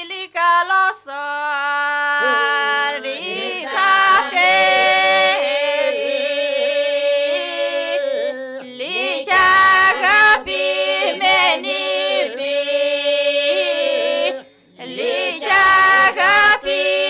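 Women's voices singing an unaccompanied Epirote polyphonic folk song from the Pogoni region: a moving melodic line over a steady held drone. Near the end the singing breaks off briefly, then the voices come in again.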